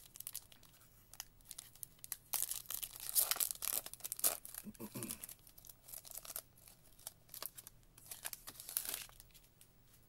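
Foil wrapper of a trading card pack being torn open by hand and crinkling as the cards are pulled out, in irregular bursts that are loudest a couple of seconds in and again near the end.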